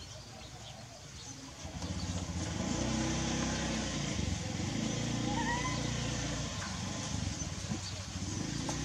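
A motor engine running, coming in louder about two seconds in and then holding steady.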